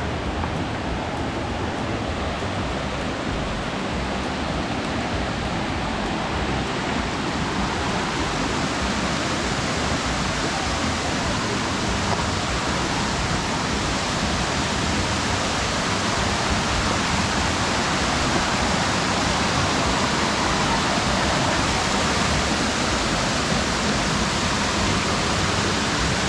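Waterfall rushing: a steady wash of falling water that grows gradually louder and brighter.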